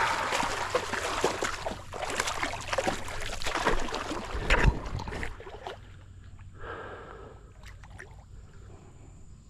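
Water splashing and sloshing in the shallows, irregular and fairly loud, with a heavier splash about four and a half seconds in, then dying down to a quiet lapping for the rest.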